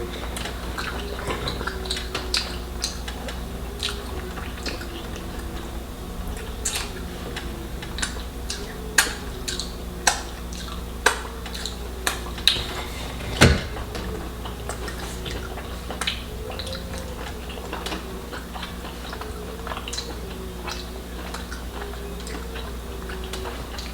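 Tableware clinking and tapping during a meal: scattered sharp clinks of dishes and cutlery, with a few louder ones clustered between about nine and fourteen seconds in.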